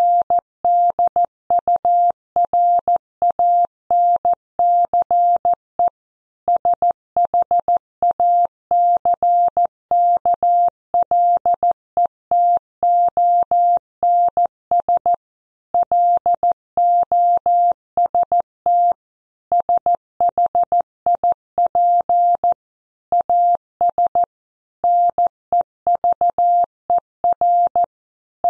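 Computer-generated Morse code at 14 words per minute: a single steady beep keyed on and off in dots and dashes, with brief pauses between words.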